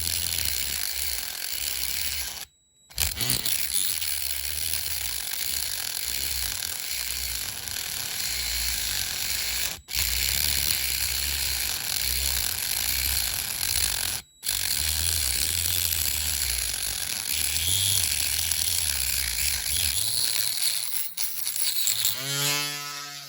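Cutting into the diecast zinc body of a toy car to remove its front wings: a steady, rough grinding and scraping of metal that drops out briefly three times. Near the end a small motor is heard spinning up and winding down.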